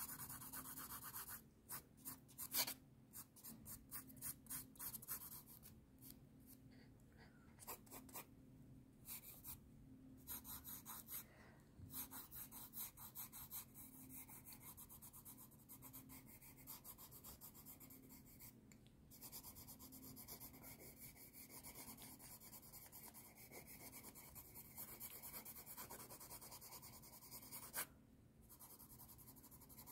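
Faint pencil scratching on sketchbook paper: runs of quick drawing strokes with brief pauses between them.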